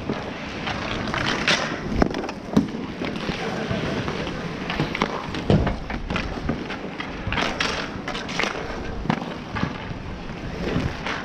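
Inline skate wheels rolling on asphalt, with sharp clacks of hockey sticks and the ball scattered throughout.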